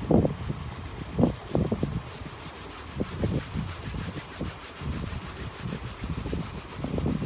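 Irregular scraping and rubbing strokes, one after another.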